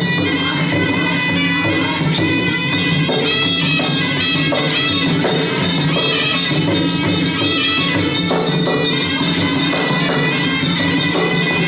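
Traditional Khmer boxing music: a reedy sralai oboe plays a continuous melody over percussion.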